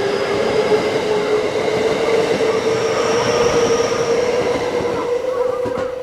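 JR West 321 series electric commuter train pulling out, its VVVF inverter-driven motors whining with a tone that climbs slowly as it gathers speed, over the rumble and clatter of the wheels on the rails.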